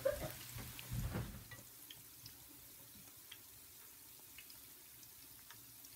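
Mushroom-and-shrimp tempura balls deep-frying in hot oil: a faint sizzle with sparse small pops and crackles. A brief soft low rumble about a second in.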